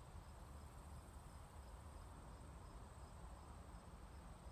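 Near silence with faint insects in the grass: a steady high buzz and a short chirp repeating about three times a second.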